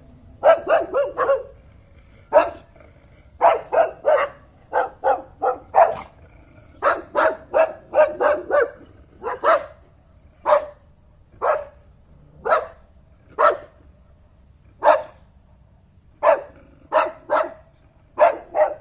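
Dog barking repeatedly, in quick runs of several barks, with single barks about a second apart through the middle stretch.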